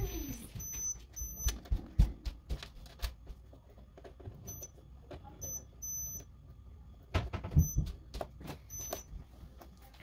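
Micronta digital multimeter's continuity beeper giving short high beeps on and off, about eight times and at uneven intervals, each beep marking a closed circuit as the probes touch the broken starter relay's contact pieces. The metal probe tips click and tap against the parts in between.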